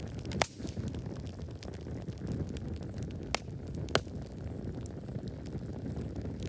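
Wood campfire crackling over a steady low rumble of burning, with many small ticks and three sharp pops: one about half a second in, and two close together in the middle.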